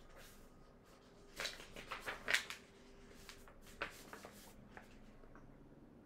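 Paper pages of a picture book rustling as it is handled and turned, a few short faint rustles clustered between about one and a half and four seconds in.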